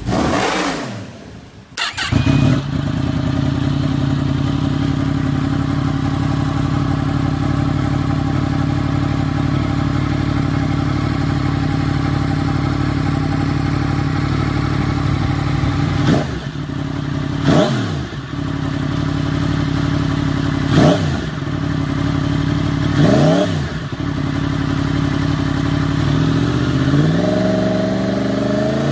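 Yamaha sport bike engine through an SC-Project aftermarket exhaust: a rev dies away, then the engine idles steadily. It takes four quick throttle blips, each rising and falling sharply, and near the end a longer rev climbs in pitch.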